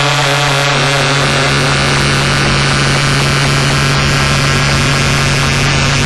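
Homemade oscillator noise synthesizer built from LM566, NE556 and LM3909 chips with a PT2399 echo chip, putting out a loud steady electronic drone under a dense hissing noise. A stack of tones in about the first second breaks up into the noise.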